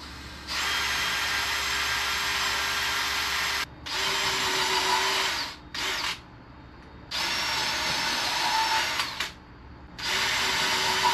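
Power drill running in five bursts with short pauses between, the longest about three seconds and the third very brief, likely driving screws into the camper's wooden framing.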